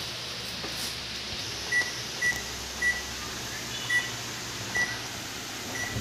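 Six short, high electronic beeps at uneven intervals of roughly half a second to a second, starting a couple of seconds in, over a low steady hum.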